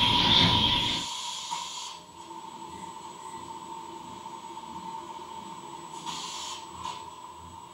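Field recordings played back through small speakers and picked up by a spinning microphone: a louder passage falls away about a second in, leaving a faint, steady hiss with a thin steady tone, and a brief brighter hiss near the end.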